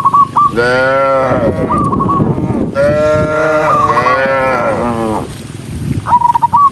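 Cows mooing: two long moos, the second longer and sliding down in pitch at its end, with short high chirping calls in between.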